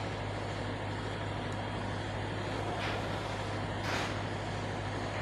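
Steady low background hum, with two faint brushes about three and four seconds in as hands move over fabric on the table.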